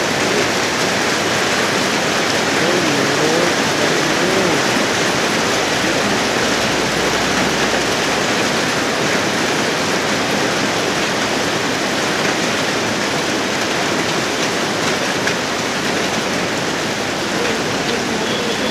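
Heavy hail falling, a dense, steady hiss and patter of hailstones striking the ground and surfaces.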